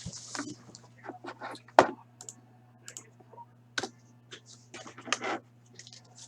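Irregular clicks and taps of computer keyboard and mouse being used, a dozen or so scattered through, the sharpest about two seconds in and around five seconds in, over a faint steady electrical hum.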